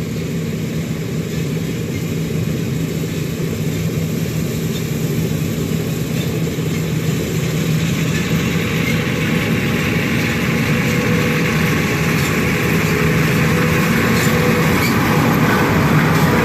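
Combine harvester running steadily in a soybean field, its engine a constant hum. A rushing, rattling noise grows louder over the second half as the machine works or comes closer.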